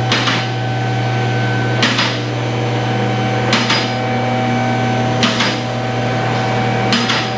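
Vehicle lift's electric hydraulic pump motor humming steadily as it raises the car, with a metallic clack about every 1.7 seconds as the safety locks catch, five times.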